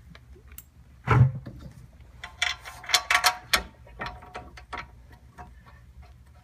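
Scattered metallic clicks and clinks as a brake caliper bolt is handled and threaded into a rear disc brake caliper, with a quick cluster of clicks near the middle.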